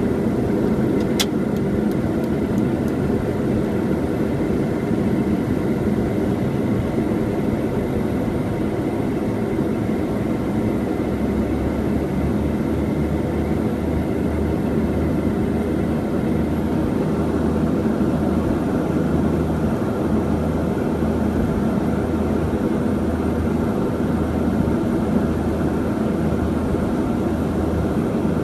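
Let L-410 Turbolet's twin turboprop engines and propellers running steadily, heard from inside the cockpit. A deeper low hum joins about eleven seconds in.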